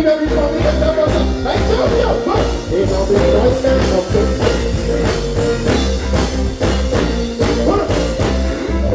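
Live reggae band playing at full volume, with a heavy, repeating bass line and drums, and a man singing over it through the PA.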